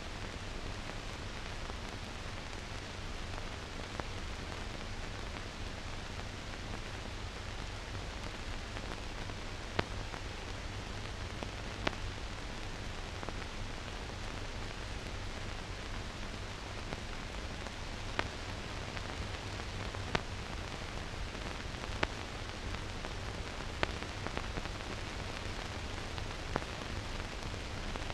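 Steady hiss and low hum with no recorded sound: the noise floor of a silent newsreel film transfer, with sharp clicks every two seconds or so from about ten seconds in.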